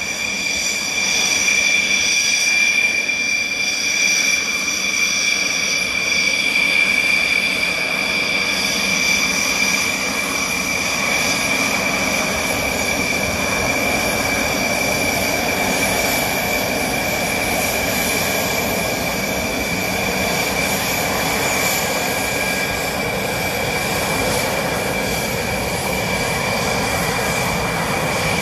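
Dassault Rafale's twin Snecma M88 turbofan engines at taxi power: a steady, high-pitched jet whine over a rushing hiss.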